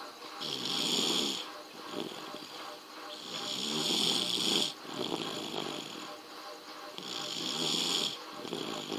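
A small baby snoring in deep sleep: a raspy snore on each breath with a hissing rush of air, repeating about every three seconds, about three breaths in all.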